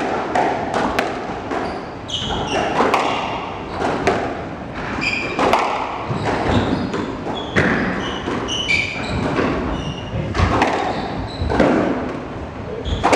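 Squash rally: the ball cracks off rackets and thuds against the court walls about once a second, a dozen or so hits, with sneakers squeaking in short high chirps on the wooden floor.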